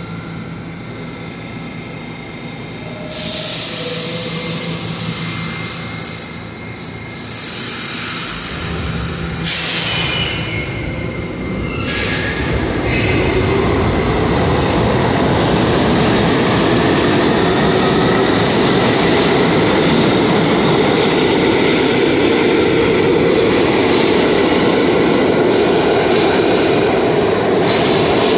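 New York City subway train of R68-family cars moving through an underground station. Sharp hissing bursts come and go in the first ten seconds, then a loud steady rumble of wheels on rails from about twelve seconds in.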